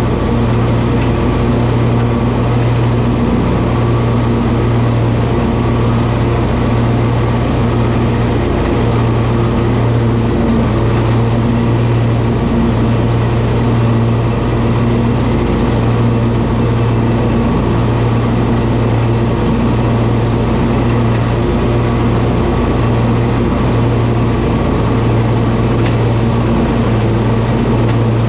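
Toro zero-turn lawn mower running steadily and loud while mowing, its engine holding an even pitch throughout.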